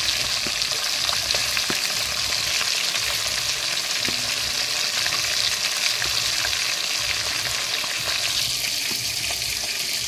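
Rohu fish steaks frying in hot oil in an iron kadai: a steady sizzling hiss with fine crackles and pops.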